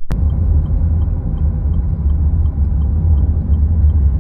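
Car cabin road and engine rumble while driving, steady and low, cutting in abruptly at the start. Over it is a faint, even ticking of the turn indicator, about three ticks a second, as the car nears a turning.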